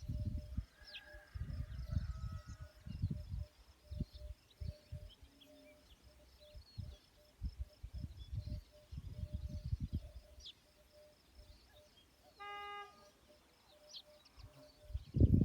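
Outdoor nature ambience: scattered bird chirps over irregular low rumbles, with a faint steady pulsing tone underneath. A short, horn-like tone sounds once, about three quarters of the way through.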